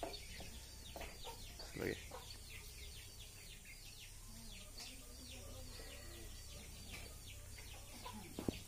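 Chickens clucking in a yard amid a steady run of quick, high chirps that fall in pitch.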